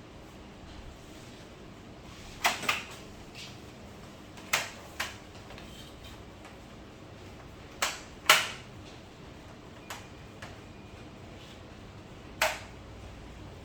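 About seven sharp clicks and taps at irregular intervals, a few coming in close pairs, plus some fainter ones. They are hard parts and tools being handled and set down while a TV is worked on.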